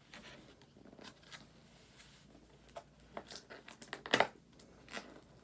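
Product packaging being handled and worked open by hand: scattered short rustles and clicks, the loudest a little after four seconds in.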